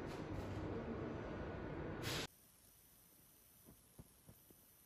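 Steady hiss of workshop background noise with a faint low hum, cut off abruptly about two seconds in. Near silence follows, with a few faint ticks.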